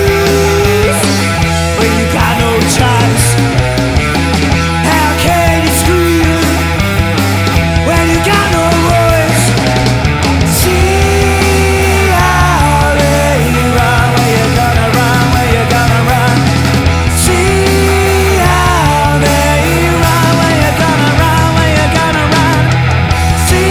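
A blues-rock band's studio recording playing loud and dense, with bending, sliding lead lines over a steady bass and drum beat.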